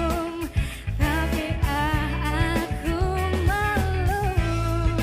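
A young woman singing a song into a microphone, holding long notes with vibrato, over a live band with bass, guitar and drums.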